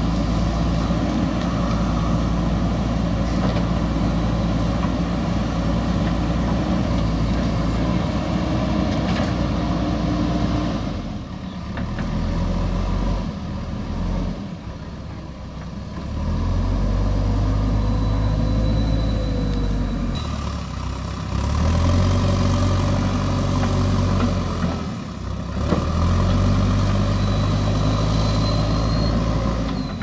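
JCB backhoe loader's diesel engine running as the machine works, its pitch rising and falling as it is throttled. The engine eases off for a few seconds a little under halfway through and briefly again near the end.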